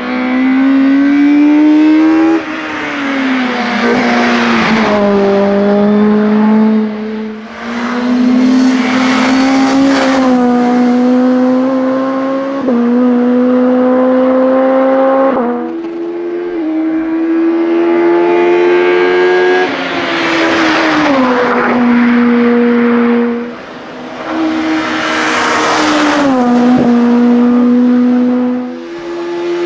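VW Scirocco hillclimb race car of the up-to-2000 cc class, its engine revving hard under full throttle. The pitch climbs through each gear and drops at each shift, about a dozen times, with the sound easing off briefly a few times.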